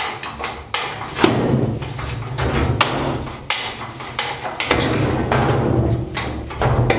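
Metal knocks and chain clanks as a Sunex 5222 hydraulic engine crane is pumped to lift a heavy steel cabinet hanging on chains, the load shifting and tilting as it comes off the floor. The knocks come irregularly, about one a second, over a low rumble.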